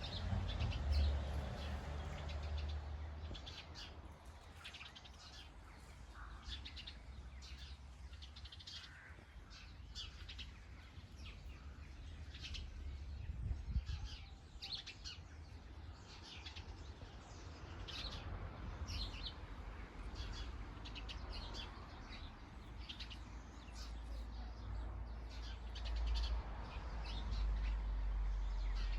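Small garden birds chirping, many short high calls scattered all through, over a low rumble that is stronger at the start and again near the end.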